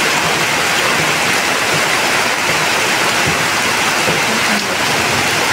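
Heavy rain and rushing floodwater on a street: a steady, loud hiss of falling rain and running water.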